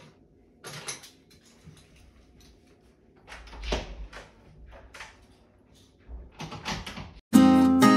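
A room door being opened and shut, with a low thud about halfway through and a few clicks and rustles after it. Near the end, loud acoustic guitar music comes in suddenly.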